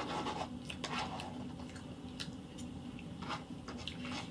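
A person chewing food close to the microphone: soft, wet mouth clicks and smacks scattered through the pause.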